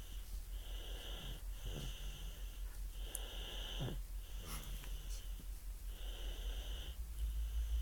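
Snoring: a run of short, wheezy breaths, each carrying a high whistling note, about one every second.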